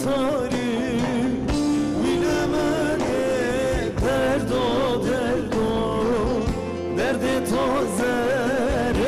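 Male singer performing a Kurdish folk song in an ornamented, wavering voice with vibrato, over band accompaniment with violins.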